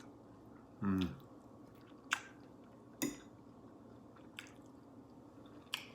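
A person chewing a mouthful of food close to the microphone, with wet mouth smacks and a few sharp clicks. A short hummed sound of the voice comes about a second in.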